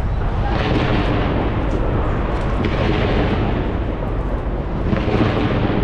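Skyscraper fireworks display: a dense, continuous barrage of exploding shells, swelling in waves about half a second in, around the middle and near the end.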